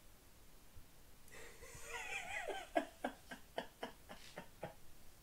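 A high, wavering vocal sound about a second in, followed by a run of short, even laughs, about four a second.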